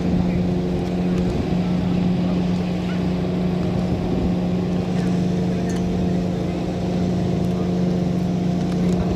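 A piston aircraft engine running steadily at an even, unchanging pitch, a constant drone without revving.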